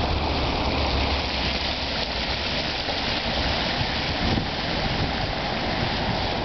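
Fountain water spilling over the rim of a metal basin and churning inside it: a steady splashing rush.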